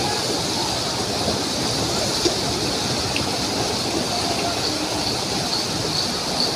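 Muddy floodwater rushing steadily across a road, a fast torrent of silt-laden water with no let-up.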